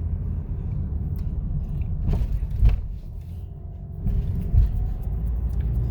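Steady low rumble of a moving car heard from inside the cabin, with a few short knocks in the middle and a brief quieter stretch.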